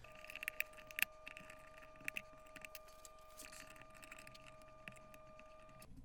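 Faint light clicks and clinks of a sheet-aluminium enclosure panel and wiring being handled, with a faint steady high whine underneath that cuts off just before the end.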